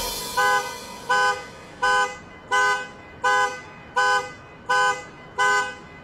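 Car alarm sounding the car's horn in short, evenly spaced honks, about three every two seconds, eight in all.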